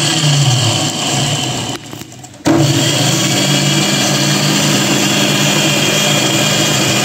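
Electric mixer grinder whirring as it grinds coffee, sugar and hot water in its small jar. It runs steadily, cuts out briefly about two seconds in, then starts again and runs on.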